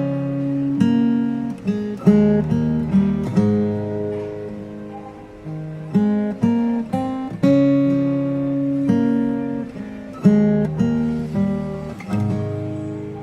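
Background music: acoustic guitar playing picked notes and chords, fading out near the end.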